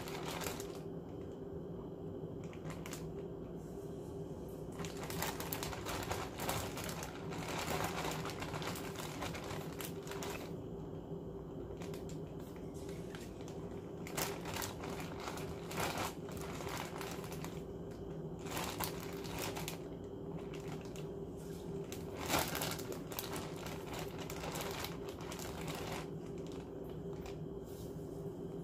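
Plastic zip-top bag crinkling and rustling in irregular bursts as coated chicken pieces inside it are handled.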